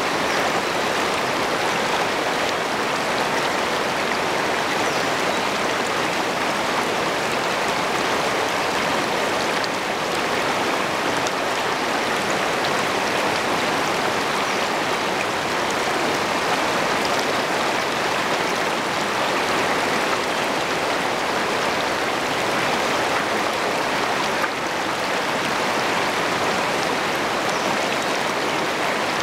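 Shallow river rapids rushing over rocks, a steady rush of water heard right at the water's surface.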